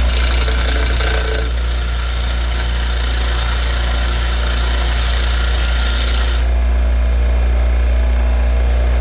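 Bench grinder running with a steady low hum while a steel 8mm socket is ground against the wheel, a rasping hiss, to thin the socket's wall. The grinding stops about six and a half seconds in and the grinder's motor hum carries on.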